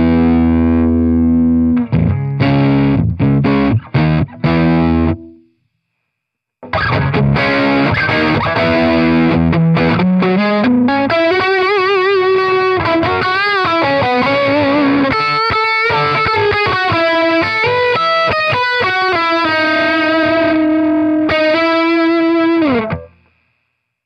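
Electric guitar played through a Kernom Ridge analog overdrive pedal, with a distorted tone: choppy chord stabs, a second's silence, then a lead line with string bends and vibrato, ending on a held note that slides down and stops.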